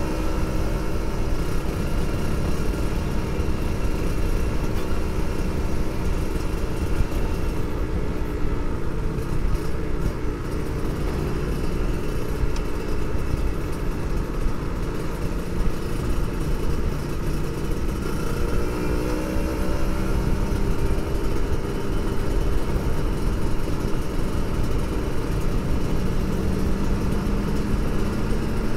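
Kawasaki Ninja 150 RR two-stroke single-cylinder engine running under way, its pitch dropping as the throttle eases partway through and climbing again a little later, over steady wind and road noise on the microphone.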